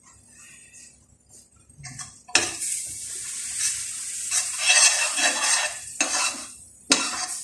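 A stainless steel frying pan on a gas burner, quiet at first. About two seconds in, a loud sizzle starts suddenly as liquid hits the hot, spiced oil. A metal spoon then stirs and scrapes in the pan, with the sizzling going on underneath.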